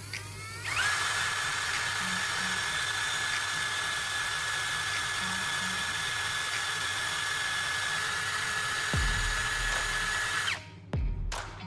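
Cordless drill spinning up and running steadily with a high whine while the core rod taken from an AA battery turns in its chuck against sandpaper, sanding it to a point. The drill stops about a second before the end.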